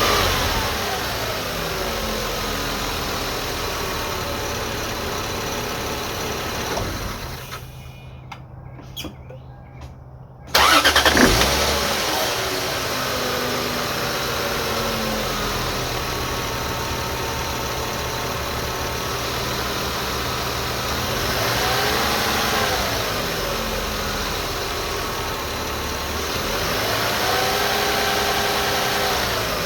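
Lexus IS300's inline-six engine running, with a whine whose pitch falls and rises with engine speed. The engine cuts out for a couple of seconds, restarts about ten seconds in and settles to idle, then is revved up and let fall twice, near 22 and 28 seconds. The whine is still there after a new timing belt, water pump and seals, and the owner wonders whether the oil pump or the alternator is making it.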